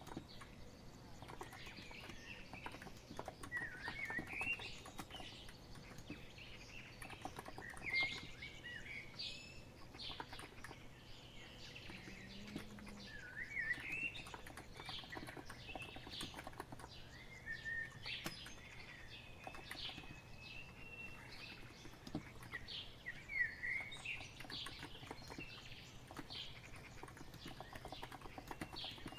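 Small birds chirping and twittering in short, quick phrases throughout, over soft, irregular clicking of keys being typed on a Cox Empress electrostatic capacitive keyboard.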